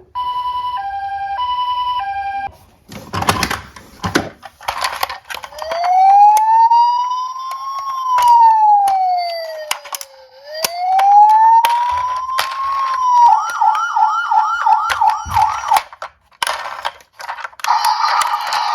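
Electronic emergency-vehicle siren: a two-tone hi-lo for about two seconds, then a slow wail that rises, falls and rises again, switching to a fast yelp. Sharp clicks and rattles of diecast toy cars run through it.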